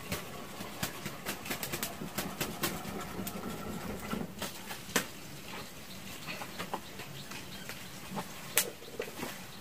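Small wood fire on an earthen hearth being tended: a run of light clicks, snaps and crackles as sticks are shifted in it, thinning out after about five seconds, with one sharp snap near the end.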